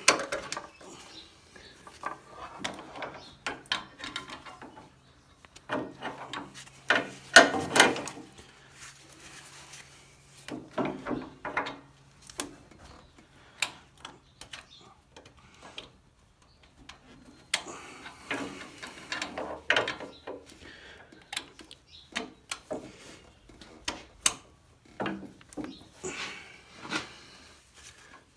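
Irregular clicks, knocks and rubbing from hydraulic hoses and fittings being handled and coupled while a backhoe is hooked up to a subcompact tractor, with a few louder clatters scattered through.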